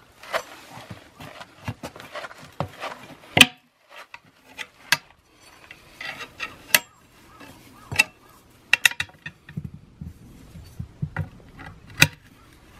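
Steel tyre levers clinking, knocking and scraping against a steel wheel rim as they pry an old, hardened tyre's bead off by hand. There are many sharp metal clicks, the loudest about a third of the way in and another near the end.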